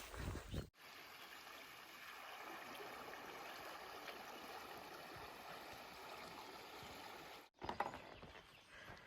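Steady rush of running water from a small stream. It starts abruptly about a second in and cuts off near the end.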